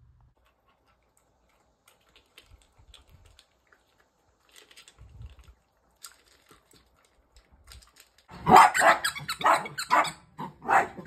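Faint scattered clicks and taps, then from about eight seconds in a miniature dachshund barking loudly in a quick run of about seven barks.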